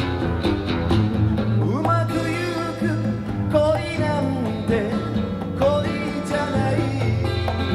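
Acoustic guitar music played back from a cassette tape recording: steady chords underneath a lead melody line that slides up and down in pitch.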